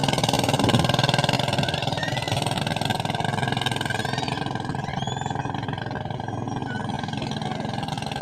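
A small wooden fishing boat's engine runs steadily as the boat passes and heads away, fading gradually.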